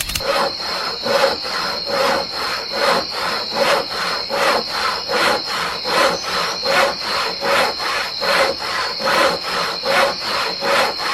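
Rhythmic back-and-forth scraping strokes, about two and a half a second, with a steady high-pitched tone underneath; they stop suddenly at the end.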